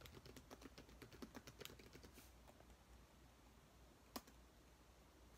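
Faint typing on a laptop keyboard: a quick run of keystrokes over the first two seconds, then a few scattered taps, with one sharper tap about four seconds in.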